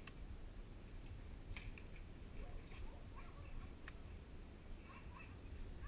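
Quiet outdoor ambience: a low rumble of wind on the microphone, with a few faint, scattered clicks and chirps.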